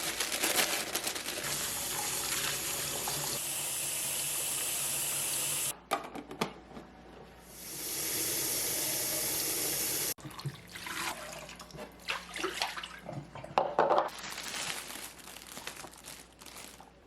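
Kitchen tap running into a sink in two spells, each cutting off sharply, followed by irregular splashing and knocking.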